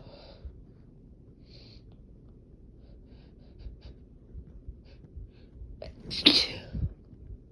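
One loud, sharp human sneeze about six seconds in, part of a sneezing fit, with a quick intake of breath just before it. Earlier there are soft breaths and a few faint clicks.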